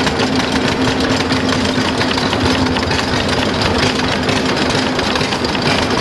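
A small stationary gas engine runs steadily, driving a corn mill. The mill's wooden meal-sifting screen shakes with a fast, continuous rattle as cornmeal is ground and sifted.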